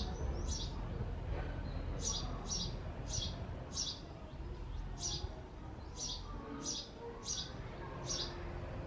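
Male house sparrow chirping repeatedly at its nest box: a string of short, sharp chirps, about one or two a second with brief pauses, over a low steady background rumble.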